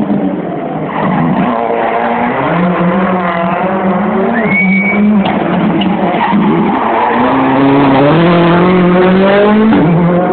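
Rally car engine revving hard through a hairpin, its pitch climbing and dropping back at each gear change, with a short tyre squeal about halfway through.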